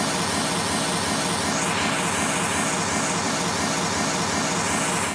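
Steady pink noise test signal from a home-theater calibration disc's speaker-pairs test, used to check that the sound from a left and right speaker pair seems to come from directly in the centre. It cuts off abruptly at the end.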